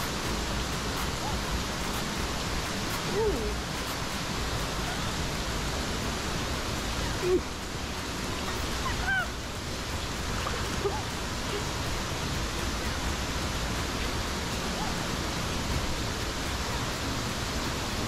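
Steady rushing of a waterfall pouring into its plunge pool, with a few brief faint high notes over it.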